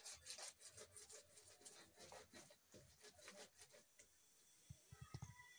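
Faint, quick taps and scrapes of food being worked by hand in a wooden bowl, about three to four a second, stopping about four seconds in. After that it is nearly quiet, with faint high chirping and a few soft low thuds.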